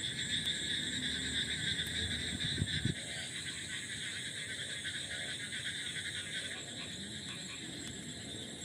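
A chorus of frogs calling without a break, a steady high, shrill din, in a rainy-season park after heavy rain.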